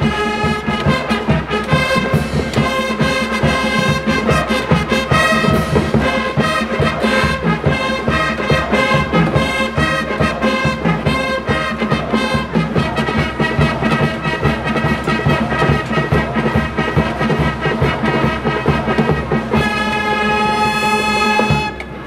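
Brass music: trumpets and trombones playing together in held notes over a busy beat, which stops abruptly at the end.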